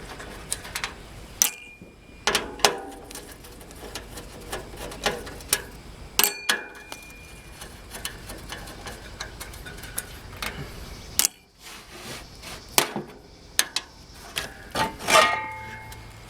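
Irregular metallic clicks and clinks, a few of them ringing briefly, as the sheet-metal fan grille on top of a heat pump's outdoor unit is unfastened and taken off.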